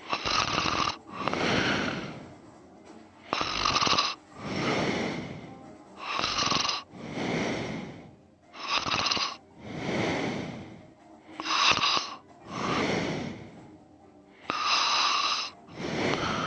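A sleeping man snoring in a regular rhythm, one breath about every three seconds. Each breath is a rasping snore followed at once by a smoother, breathier one.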